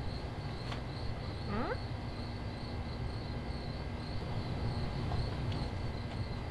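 Crickets chirping steadily over a low rumble, with a short rising squeak about one and a half seconds in.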